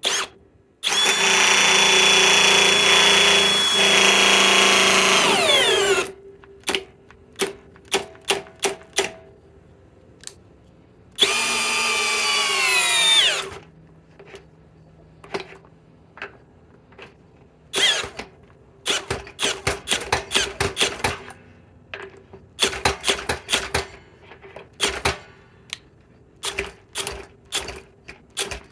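Hercules 1200 in-lb cordless drill driver driving a 6-inch lag screw into pre-drilled wood. The motor makes two long whining runs, the second dropping in pitch as it loads up, then gives many short clicking bursts as it struggles: the lag is reaching as far in as this drill can drive it.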